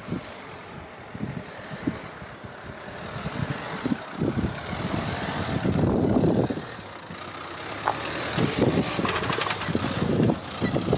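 A Dacia Duster SUV approaching along a road and drawing up close, its engine and tyres growing louder toward the middle and staying loud as it comes alongside.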